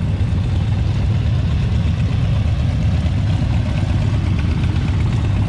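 Cruiser motorcycles' V-twin engines idling together, a steady low loping rumble.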